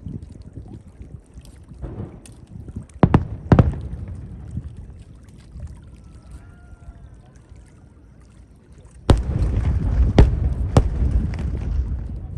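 Fireworks exploding: two sharp bangs about three seconds in, a faint wavering whistle in the quieter middle, then from about nine seconds a dense barrage of booms and crackle with a few louder bangs, heard through a phone's microphone.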